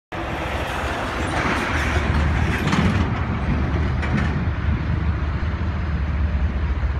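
Steady low rumble of vehicles, with a hiss that fades about three seconds in.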